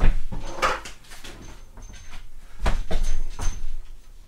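Knocks and clunks of things being handled and moved about, a handful of sharp strikes with a faint high squeak among them.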